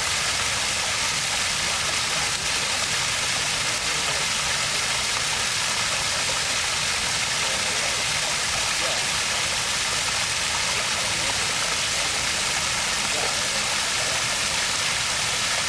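Water stream flowing steadily: an even, unbroken rush of water, strongest in the high hiss.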